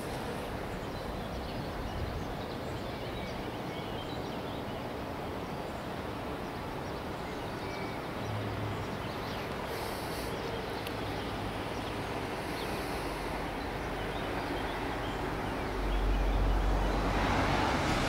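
Ballast train pulling away into the distance, a steady rumble of wheels on track. Near the end a louder low rumble rises as road traffic comes closer.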